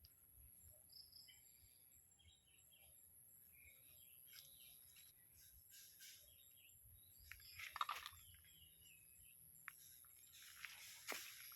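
Near silence with faint bird chirps and two brief rustling or scraping noises, the louder one about eight seconds in.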